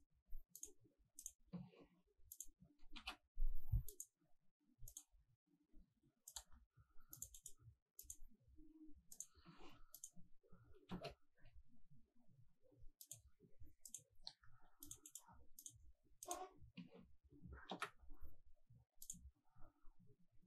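Faint, irregular clicking of a computer mouse, dozens of clicks, with soft low knocks in between and one louder thump about three and a half seconds in.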